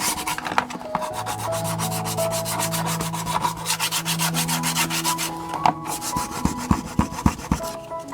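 Nail file scraping over a painted wooden breadboard, scratching through the paint to distress it: quick back-and-forth strokes at first, then steadier rubbing, with a few sharp taps near the end.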